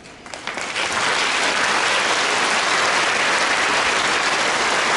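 Audience applause: a few scattered claps that within the first second swell into steady, full clapping.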